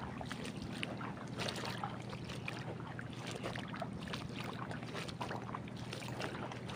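Wet mangrove mudflat ambience: many small scattered clicks and pops over a steady low hum.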